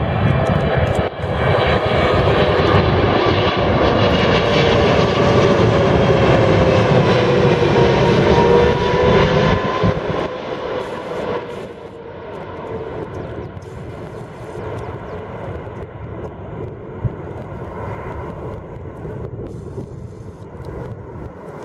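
Boeing 777-300ER's GE90-115B turbofans on approach, passing low overhead with the gear down. The engine whine falls in pitch as the jet goes by. About eleven seconds in, the sound drops to a quieter, steady jet rumble as the aircraft flares to land.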